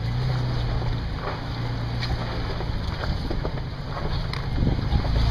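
Off-road vehicle's engine running low and steady as it crawls over a rocky trail, with scattered knocks and clicks from the tyres on rock and the body working; it gets louder near the end.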